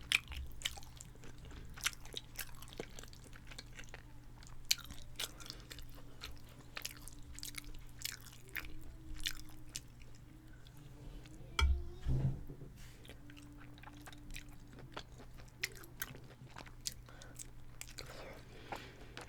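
Close-miked mukbang chewing of Parmesan chicken and spaghetti: a steady run of sharp wet mouth clicks and smacks. A couple of louder low thumps come about twelve seconds in, over a faint steady hum.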